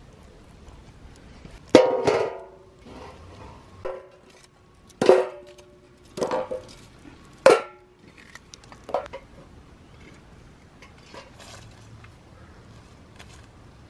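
Metal tongs knocking and setting charred embers on a large metal tray, giving about five sharp metallic clangs, each ringing briefly.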